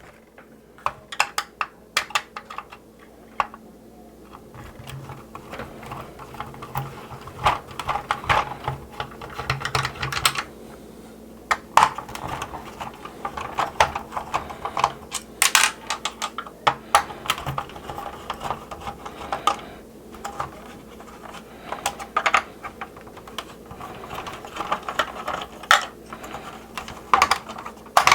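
Screws being taken out of a vintage hard plastic toy jet shell: scattered sharp clicks and taps of the screwdriver, the screws and the plastic parts being handled, irregular throughout.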